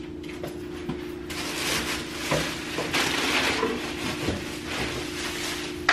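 Rummaging through an open refrigerator: packages rustling and shifting on the shelves, with small knocks, over a steady hum.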